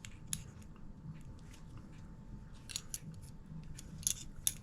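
Small steel parts of a Mosin-Nagant rifle bolt clicking and scraping as the bolt head and guide bar are handled and slid into place; a few sharp metallic clicks, the last two near the end.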